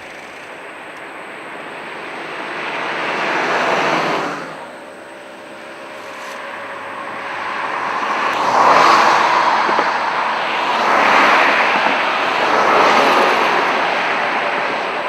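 Motor vehicles passing close by, one after another: a rising rush of engine and tyre noise peaks about four seconds in and drops away, then three more passes swell and fade in the second half.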